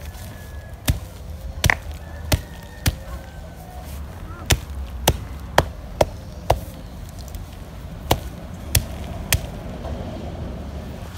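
Dried kava root being pounded with a hand-held round stone: about a dozen sharp knocks in uneven runs, roughly two a second, pausing between runs. It is the kava being crushed to powder before it is mixed for drinking.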